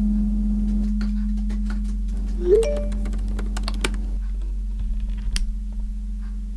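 Vintage typewriter keys striking in irregular clacks over a low, steady music drone.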